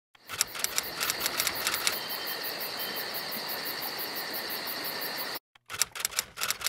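A small mechanism running with rapid clicking at first, settling into a steady whir that cuts off abruptly about five seconds in, followed by a few sharp clicks.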